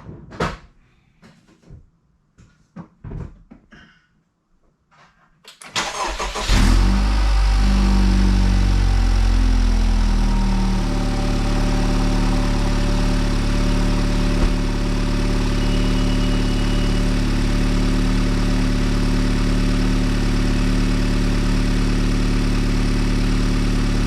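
A few clicks and knocks, then the Honda Civic Type R FK8's 2.0-litre turbocharged four-cylinder cranks and starts about six seconds in. Its revs drop over the next few seconds and it settles into a steady idle.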